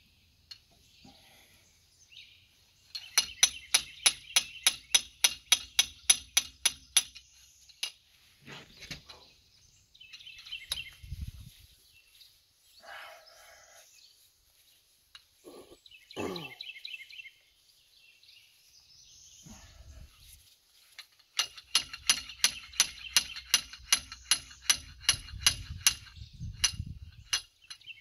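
Two runs of rapid, even clicking, about five clicks a second, each lasting several seconds, from hand-tool work on the top stage of a dump trailer's telescopic hydraulic cylinder ram.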